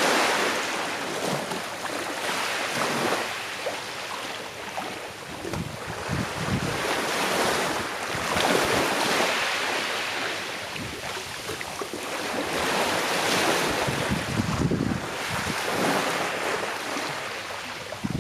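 Sea waves washing on the shore, the surf swelling and falling back every few seconds, with some wind on the microphone.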